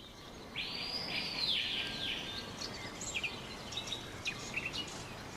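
Wild birds calling: one long, high call lasting about a second and a half, then a scatter of short chirps.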